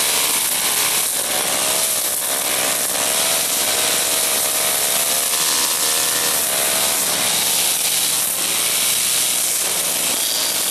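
Petrol brush cutter running at high speed while cutting grass, its engine note wavering slightly up and down as the load changes.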